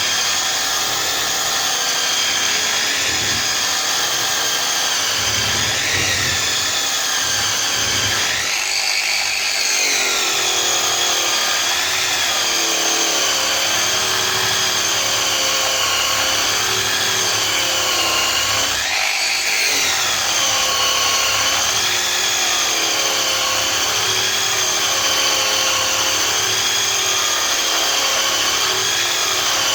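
Hand-held electric power tool fitted with a wire brush, running steadily while it brushes metal exhaust parts clean. Its motor whine wavers in pitch throughout, and rises briefly twice, about nine and nineteen seconds in.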